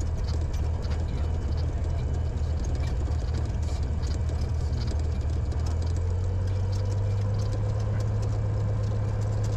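Cessna 182's piston engine and propeller running at low taxi power, heard from inside the cockpit: a steady low engine hum with a pulsing beat that evens out about six seconds in.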